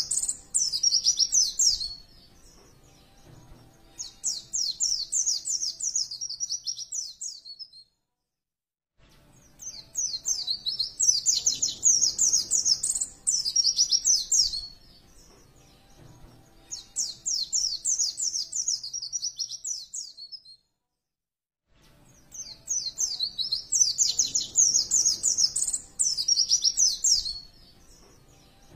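Pleci (white-eye) singing in repeated bursts of rapid, high chirping trills about two seconds long, with short pauses between them and two brief dead-silent gaps.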